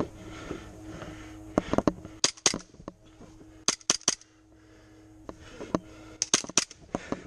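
Airsoft gunfire: three short bursts of sharp snapping shots, about two seconds apart.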